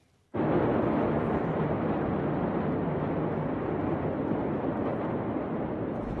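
Steady rushing, rumbling outdoor noise from amateur footage of the Beirut port smoke plume. It starts suddenly about a third of a second in, and no single blast stands out.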